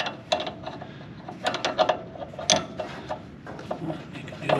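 Wrench turning a drive-shaft bolt out of a mower deck: irregular metallic clicks and clinks of the tool against the bolt and nut, some with a short ring.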